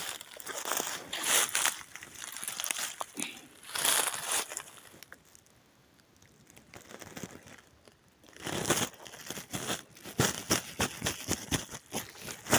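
Dry pine needles and twigs crunching and crackling underfoot in irregular steps. The sound quietens for a few seconds in the middle, then resumes more densely.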